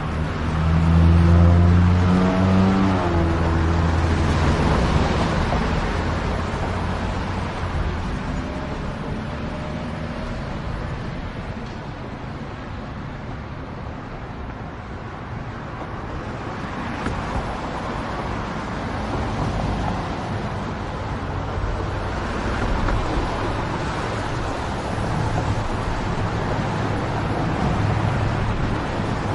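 Street traffic: a motor vehicle close by pulls away, its engine note rising over the first few seconds and loudest then, followed by a steady wash of passing cars.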